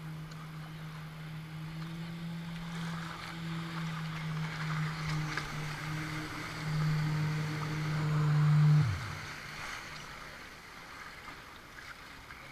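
Jet ski engine running at a steady pitch over rushing water and wind, growing louder; about nine seconds in the throttle is let off and the engine note falls away sharply, leaving the sound of the hull in choppy water.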